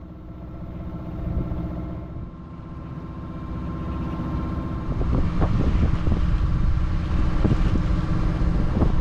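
Small sailboat's engine running steadily while motoring under way. About halfway through, a louder rushing noise of wind and water comes up over it, with a few short knocks.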